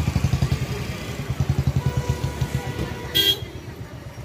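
Vehicle engine idling close by in stop-and-go traffic with a fast, even low throb. A short horn toot comes about three seconds in.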